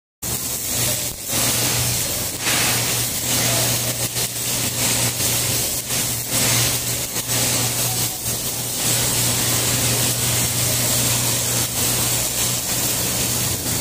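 Stick-welding arc from an E6011 electrode run hot, about 120–130 amps, crackling and sputtering as it burns a hole through a steel bracket, with a steady low hum underneath.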